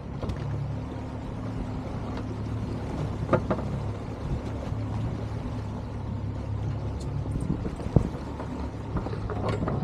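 Boat engine running steadily, with a sharp knock about a third of the way in and another, louder one near the end.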